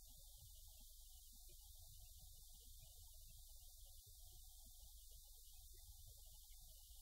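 Near silence: a faint, steady low rumble with hiss.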